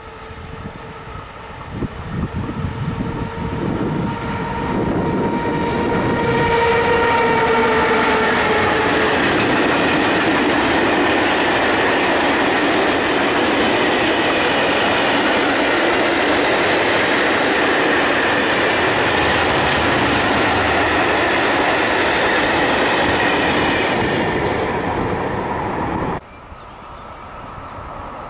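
Freight train passing close by: the locomotive's steady tones grow louder over the first few seconds as it approaches, then a long run of covered goods wagons clatters and rumbles over the rails. Near the end the sound cuts off abruptly to the fainter rumble of another train approaching in the distance.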